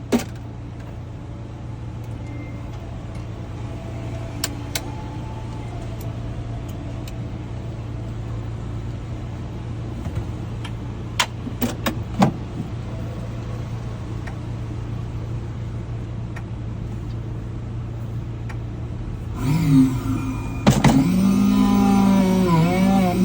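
Electric key-cutting machine: a steady low hum with a few sharp clicks and taps, then the motor starts about 19 seconds in with a whine that sags briefly as the cutter bites into the key blank.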